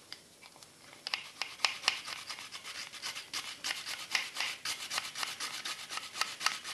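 A garlic clove being grated in a handheld plastic garlic grater: pressed down by the plunger cap onto the metal grating plate and rubbed quickly back and forth. It makes a rasping scrape several strokes a second, starting about a second in after a few light handling clicks.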